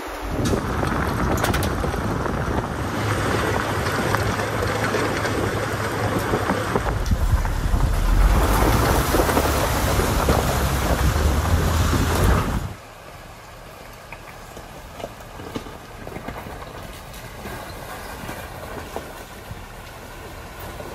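Truck driving through a shallow creek crossing: engine running under a dense wash of water and tyre noise. About thirteen seconds in it cuts abruptly to a much quieter stretch of an SUV wading across a river, with water rushing and the engine faint.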